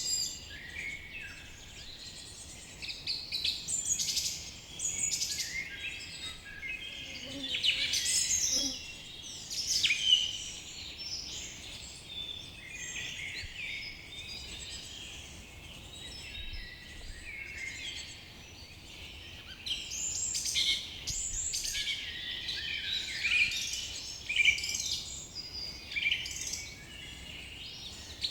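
A chorus of many forest birds calling and singing together: a dense, unbroken stream of high chirps, trills and short whistles, swelling into louder flurries of song now and then.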